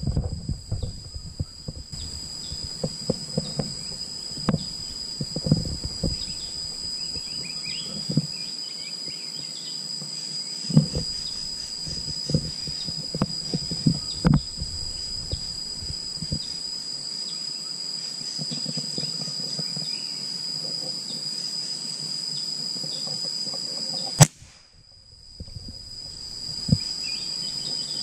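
Insects buzzing in a steady high tone, with low rustles of the rifle being handled, then a single sharp crack of an air rifle shot about four-fifths of the way through, after which the insect sound briefly drops out.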